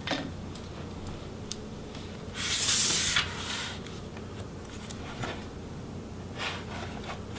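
Opened laptop chassis sliding and scraping across the tabletop as it is turned around, a rushing scrape of a little over a second about two seconds in, with a few light handling clicks and knocks before and after.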